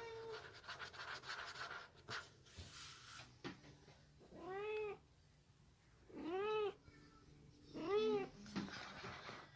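A cat meowing three times, each meow a short rise and fall in pitch, a second or so apart.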